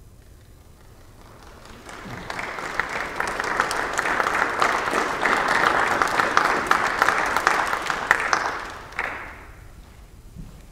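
Audience applauding, swelling over the first couple of seconds and dying away about nine seconds in.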